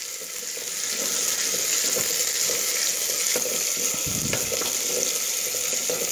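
Sliced shallots sizzling steadily in hot oil in an earthenware pot, with a few light scrapes and knocks from stirring.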